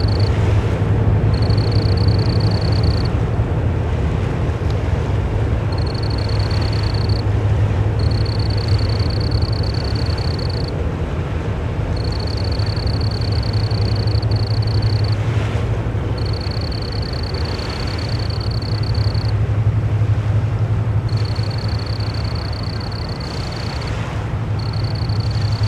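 A cricket trills in high, steady stretches of one to three seconds with short pauses between them, over the steady low drone of a towboat's engines pushing barges on the river.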